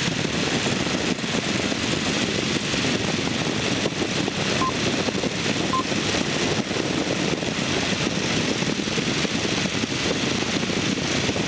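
Microlight aircraft's engine and propeller running steadily in flight, a dense, even drone heard from inside the cockpit. Two brief faint beeps come about a second apart near the middle.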